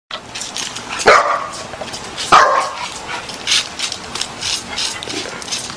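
Dog barking twice, two short sharp barks falling in pitch about a second apart, over a run of quick irregular scratchy clicks and scuffs.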